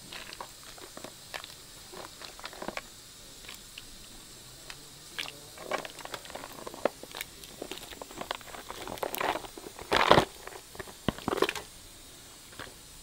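Irregular clicks and crackles of live crayfish shells scraping in a plastic tub and being handled as they go into a pot of steaming coconut milk, with a louder rustling clatter about ten seconds in.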